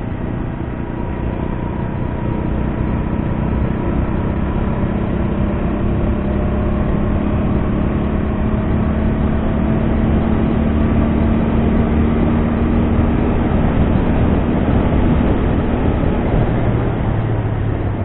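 TVS Apache RTR 200's single-cylinder engine and exhaust at a steady cruise, heard from the rider's seat. The note's pitch creeps slowly up as the bike gains speed, then drops off near the end as it slows.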